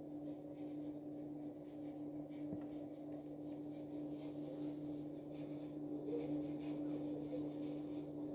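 Room tone dominated by a steady low hum, with one faint tap about two and a half seconds in.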